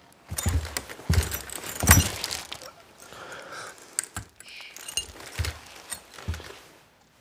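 Slow, heavy boot footsteps on a floor, with tactical gear jangling and clinking between the steps.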